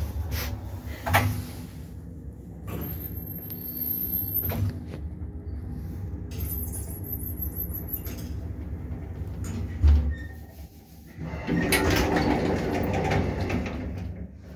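1977 KMZ passenger lift car running with a steady hum. About ten seconds in a heavy clunk marks the car stopping at the floor, followed by a couple of seconds of rattling as the car doors slide open.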